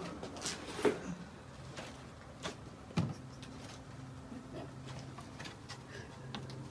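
Quiet room tone with a few faint scattered taps and knocks, and a low steady hum that comes in about three seconds in.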